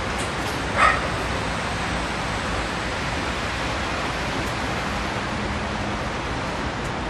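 Steady hiss of outdoor city background noise, with a dog barking once, short and sharp, about a second in.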